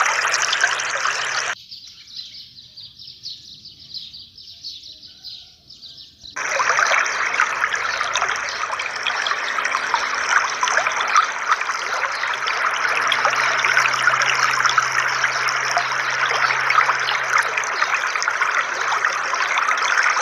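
Water jets of a small pool fountain splashing steadily back into the pool. From about a second and a half in, the sound abruptly turns thin and faint for about five seconds, then comes back full.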